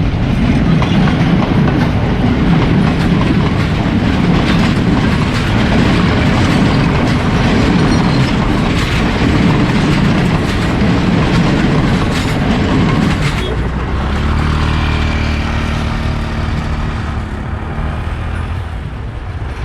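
A train's cars rolling past over a level crossing, wheels clattering on the rail joints. About two-thirds of the way through the rail noise eases and a steady engine hum takes over.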